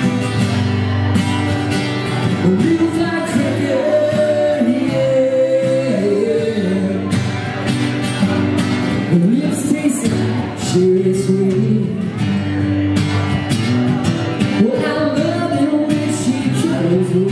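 Two acoustic guitars strummed in a live country song, with a man singing the melody over them.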